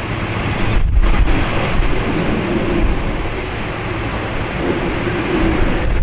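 Gusty typhoon wind rumbling on the microphone, mixed with the steady engine noise of an Embraer ERJ-190's General Electric CF34-10E turbofans on approach, growing slowly louder.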